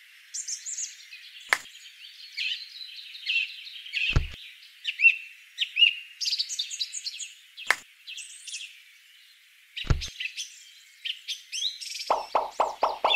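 Small birds chirping and whistling in quick, overlapping calls, with a few sharp isolated knocks. Near the end a rapid run of short pulses starts.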